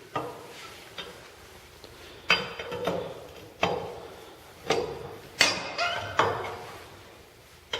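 Lug wrench clanking on the lug nuts of a 1949 Chevy's rear wheel while they are loosened: a run of sharp metal clinks, each with a short ring, irregularly spaced a second or so apart.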